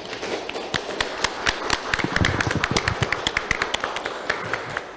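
A small group of people applauding, with separate claps easy to pick out, thinning out near the end.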